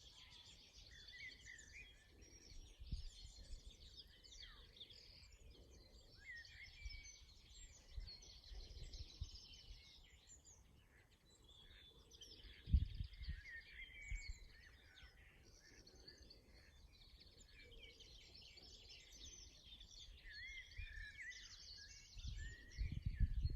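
Outdoor birdsong dominated by a linnet's rapid, continuous twittering song. A few low bumps on the microphone, the loudest about halfway through and again near the end.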